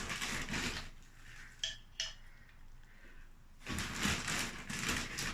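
Scraping and rustling of a potted plant's soil and roots being handled and worked out of its pot, with two light clinks a little under two seconds in.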